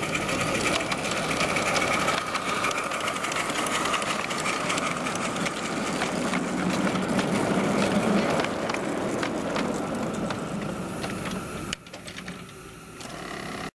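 A 7¼-inch gauge live-steam miniature locomotive and its riding cars passing on portable track, a rapid, steady mechanical clatter. The sound drops off suddenly about twelve seconds in.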